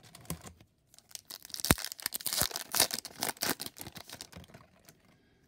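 Foil wrapper of a Bowman baseball card pack being torn open and crinkled. The crackling starts about a second in, has a sharp snap early on, and dies away about a second before the end.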